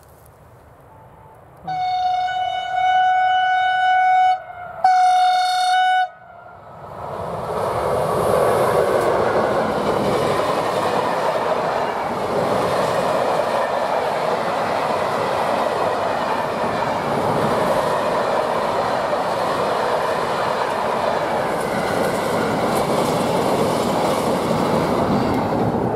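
Freight train's locomotive horn sounding two blasts on one steady tone, the first about three seconds long and the second about a second. Then a container freight train rolls past, a steady rumble and rattle of wagon wheels on the rails.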